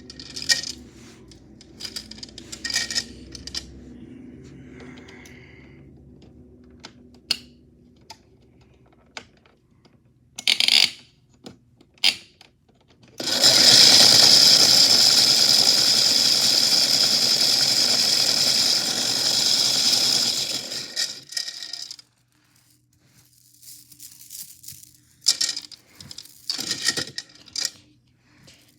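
Metal chains clinking in the drum of a toy washing machine, scattered clinks at first. About halfway in, the machine runs for roughly eight seconds and the chains churn in a loud continuous rattle. It cuts off suddenly, and a few more clinks follow.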